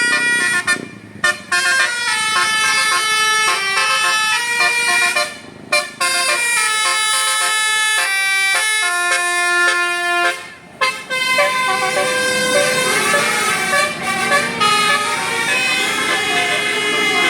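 Bus 'telolet basuri' musical horn playing a tune of held notes that step up and down in pitch, with short breaks between phrases about one, five and a half, and ten and a half seconds in.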